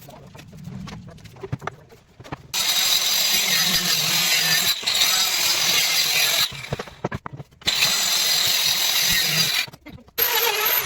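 Handheld power tool cutting into wood, running in loud bursts: one of about four seconds starting a couple of seconds in, a short break, another of about two seconds, and a third starting just before the end.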